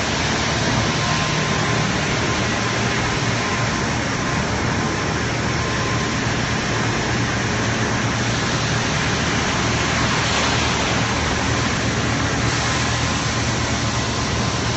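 Steady industrial machinery noise inside a plant: a constant hiss with a low hum under it and a faint, even high tone, unchanging throughout.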